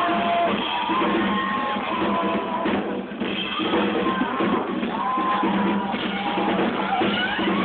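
Live rock band playing loudly on drums and keyboard, recorded through a phone's microphone.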